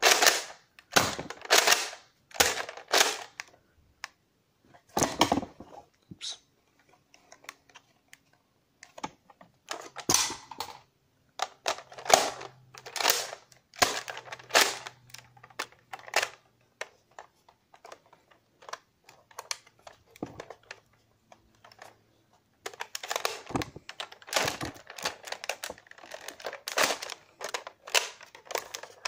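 Nerf Modulus Tri-Strike blaster being primed and fired over and over: sharp plastic clacks of the priming slide and the snap of the spring-plunger shots. They come quickly at first, then in irregular bursts with pauses, then bunch up again near the end. The blaster is one the owner says jams a lot.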